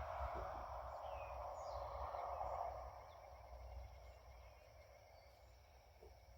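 Outdoor ambience: a steady hiss that fades about three seconds in, a low rumble underneath, and a few short bird chirps that glide down in pitch.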